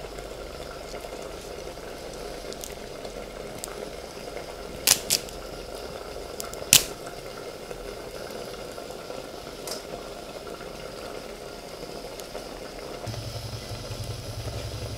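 Prawn masala bubbling and sizzling softly as it cooks down in a clay pot, with a few sharp clicks around the middle. A low steady hum comes in near the end.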